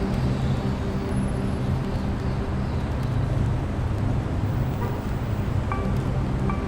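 Steady road traffic noise with a low, even engine hum underneath.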